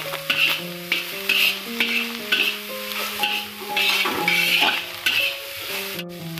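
Metal spatula scraping and tossing vegetables around a black wok, about two strokes a second, over the sizzle of stir-frying. Background music with slow held notes plays underneath.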